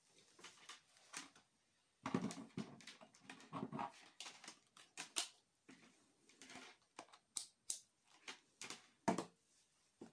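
Irregular clicks, taps and rustles of a handheld digital multimeter and its test leads being handled and set down on a wooden table, with a few heavier knocks among them.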